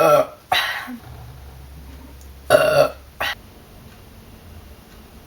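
A person burping on purpose: a loud burp right at the start, a rougher one about half a second later, and another loud burp about two and a half seconds in, cut short by a brief final one.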